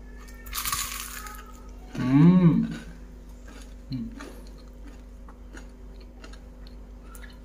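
A man eating crispy fried catfish: a short hiss-like noise about half a second in, then a loud hummed "mmm" that rises and falls about two seconds in and a brief "hm" near four seconds, with soft chewing clicks throughout.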